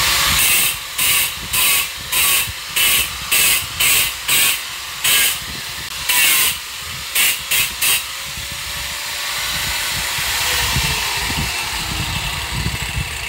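Handheld power tool worked against a wall in about a dozen short bursts of harsh hissing noise, throwing up a cloud of dust, then a steadier hiss that fades away.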